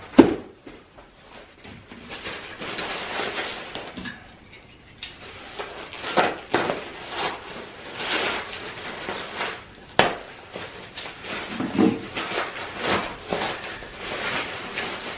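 Bubble wrap around a chainsaw power head being handled, cut and torn open: irregular crinkling and rustling plastic with scattered knocks. The loudest is a thump just after the start, with another sharp click about ten seconds in.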